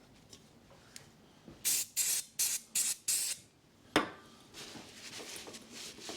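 Aerosol can of brake cleaner sprayed in about five short hissing bursts to degrease brake parts, followed about four seconds in by a sharp knock and then the rubbing of a wipe-off.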